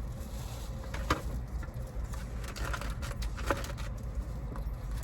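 Soft scattered clicks and rustles of someone eating from a takeout food container, over a steady low rumble.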